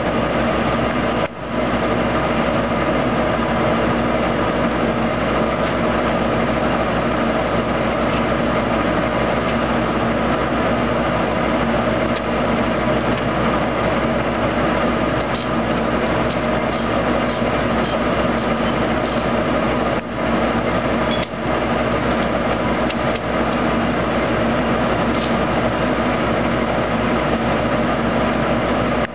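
A 1970s Foley Belsaw circular sawmill and the tractor driving it through the PTO, running steadily at speed. The sound drops out briefly about a second in and twice around the twenty-second mark.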